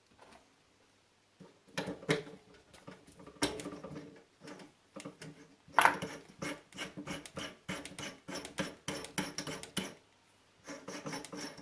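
Metal parts and hand tools being handled on a drill press: irregular clicks, knocks and scraping, starting about a second and a half in and easing off near the end.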